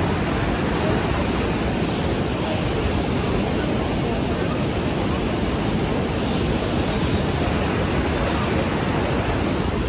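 Steady, loud rushing of fast-flowing river water, even and unbroken.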